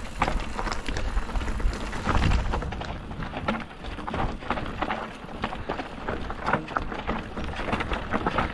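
Mountain bike rolling fast down a rough trail: a steady clatter of small knocks and rattles from the bike over stones and roots, with wind rumbling on the microphone.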